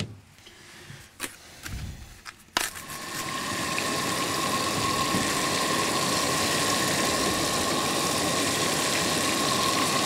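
Butter sizzling in a hot frying pan on a propane camp stove, starting suddenly about two and a half seconds in and then holding steady, with chunks of raw Coues deer venison going into the pan. A few light clicks come before the sizzle starts.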